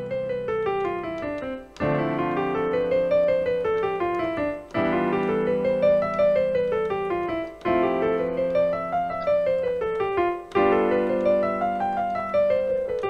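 Digital piano playing a held seventh chord in the left hand while the right hand runs a scale up about an octave and back down. The chord changes about every three seconds, stepping through C major 7, D minor 7, E minor 7, F major 7 and G7, each paired with its own mode (D Dorian, E Phrygian, F Lydian, G Mixolydian).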